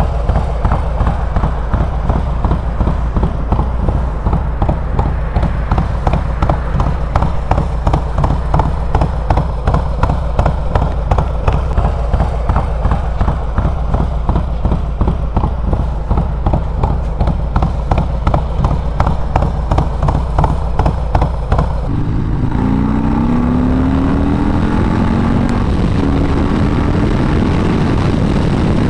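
Harley-Davidson with a 128 cubic inch S&S V-twin, Star Racing 30/30 cam and S&S 2-into-1 Superstreet exhaust, idling with an even pulsing beat. About three-quarters of the way through it is revved up, the pitch rising, and held at higher revs.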